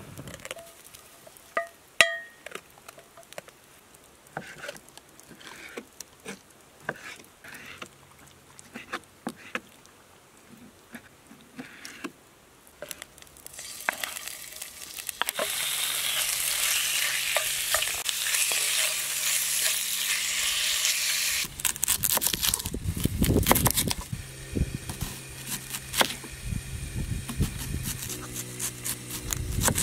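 Diced grouse breast frying in lard in a cast iron skillet over a campfire: scattered clicks and knocks at first, then a loud sizzle from about halfway in that lasts several seconds as the meat hits the hot pan. After the sizzle come heavier knocks, and near the end a knife clacks through an onion onto a wooden cutting board.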